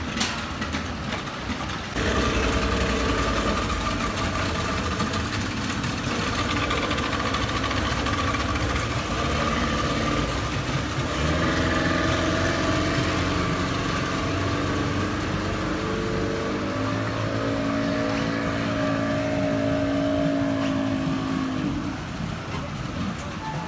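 Several outboard motors on a passenger speedboat running and then revving up as the boat pulls away. Their pitch climbs over several seconds and falls away about two seconds before the end.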